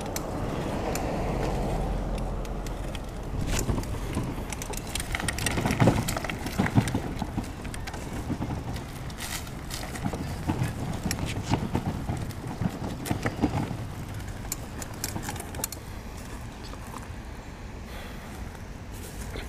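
A car passes in the first couple of seconds. Then a fat bike rattles and knocks repeatedly as it rolls over bumpy dirt ground, with the loudest jolts around the middle, before it settles down near the end.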